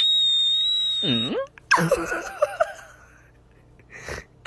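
A steady high whistle-like tone for about the first second, then a person giggling in short bursts, and a brief breathy puff near the end.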